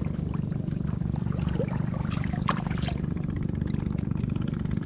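Small boat motor running steadily with a low hum, with water trickling and a couple of light splashes about halfway through.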